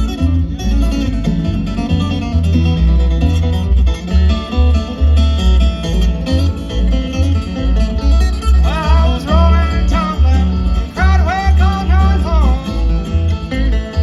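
Country-bluegrass band playing, with guitar and banjo over a steady bass beat; a lead line slides and bends in pitch in the second half.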